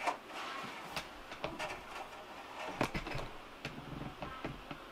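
Faint, scattered clicks and light knocks of a dome heat lamp being handled and set on the mesh top of a reptile enclosure.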